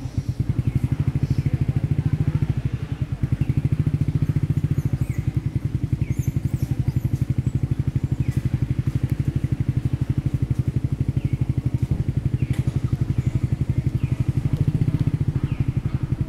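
An engine idling with a steady, rapid low putter, with faint short high chirps here and there.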